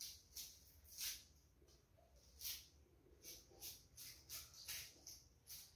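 A kitchen knife peeling the dry skin off an onion by hand: faint, irregular short scrapes and scratches, about a dozen of them.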